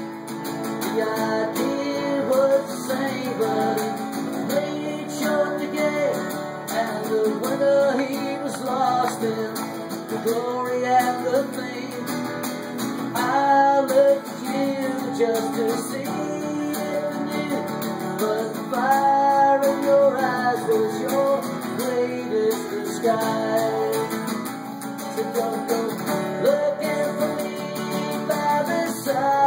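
Harmonica playing a bending melody over a steadily strummed resonator guitar, one busker playing both at once with the harmonica held in a neck rack.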